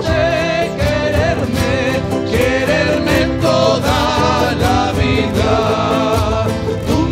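Live Andean folk band playing, with strummed acoustic guitars and a small strummed string instrument over a bombo drum, and voices singing the melody.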